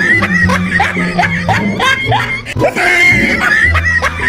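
Background music with held bass notes and a quick run of short rising notes at an even pace.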